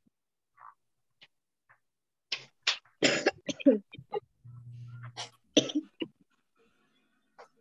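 A person coughing several times in short bursts, heard through a video-call microphone, with a low buzz lasting about a second in the middle.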